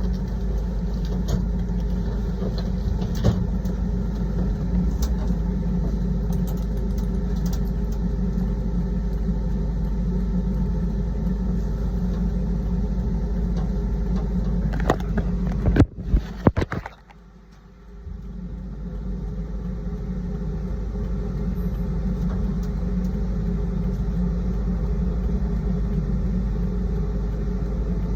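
A vehicle engine running steadily at idle, a low rumble. Just before halfway there are a few sharp clicks, then the rumble drops away for about a second and comes back up.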